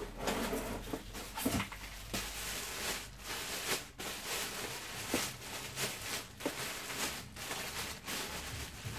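Packaging being handled and pulled apart while unpacking a stick vacuum cleaner: continuous rustling with many short clicks and knocks.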